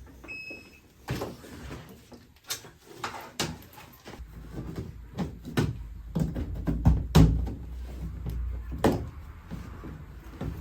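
Repeated knocks and clunks of hard panels being handled and set in place, with a low hum starting about four seconds in.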